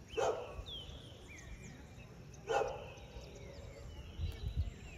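Birds chirping in short, falling calls, with two brief louder cries about a quarter second and two and a half seconds in. Low wind rumble on the microphone, stronger near the end.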